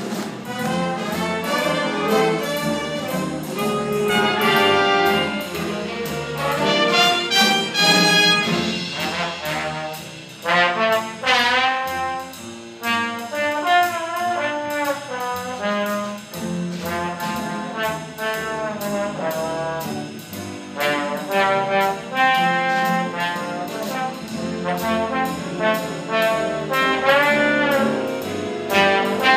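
Jazz band playing live: brass melody lines over piano and a drum kit keeping a steady cymbal beat.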